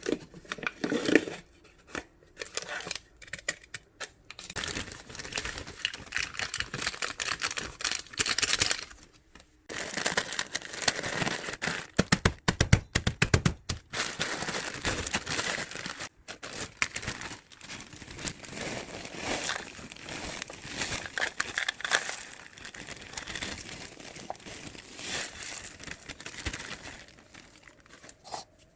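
Packaging being crinkled and torn open by hand, in irregular rustling bursts with short pauses.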